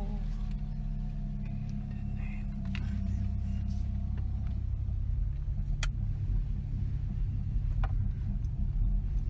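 Car engine and road rumble heard from inside the cabin as the car drives off, getting a little louder a few seconds in, with a few faint clicks.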